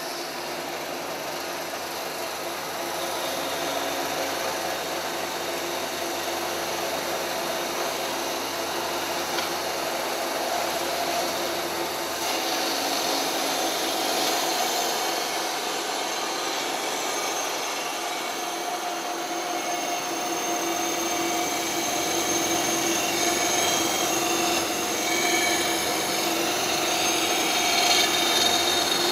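Rust-cleaning machine for square steel profile tube running steadily, stripping rust off the tube as it works, with a steady hum under a harsh scraping noise that grows a little louder after a few seconds and again near the end.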